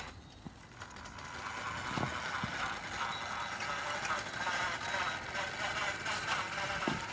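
Small live-steam model fire engine running, its steam hissing steadily with the light mechanical clatter of its little engine; the sound builds up about a second in.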